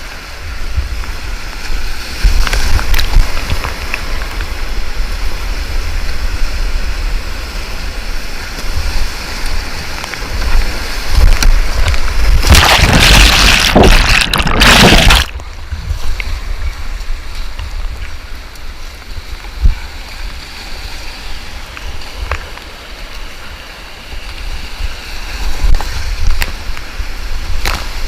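Whitewater rapids rushing and splashing around a kayak, heard through a GoPro's microphone with a heavy low rumble. About halfway through, a louder rush of splashing lasts a few seconds and cuts off suddenly.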